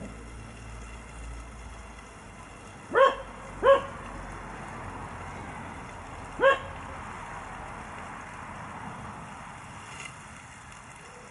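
A dog barking three times: two barks close together about three seconds in, then a third a few seconds later.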